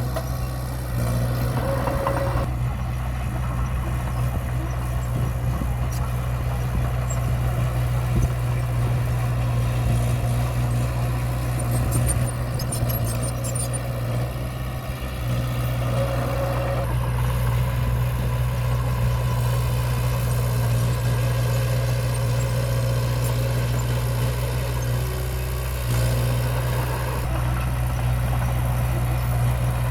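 Diesel engine of heavy earthmoving equipment running steadily, with a deep drone whose note shifts a few times.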